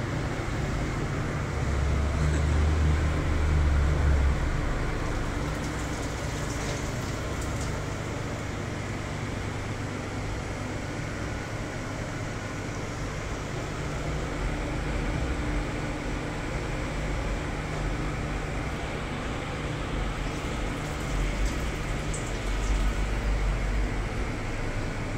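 Steady low rumble and hiss of background noise, louder for a couple of seconds near the start, with a few faint light clinks.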